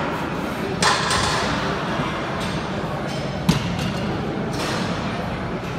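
Steady gym room noise with a few dull knocks, the clearest about a second in and again around three and a half seconds in.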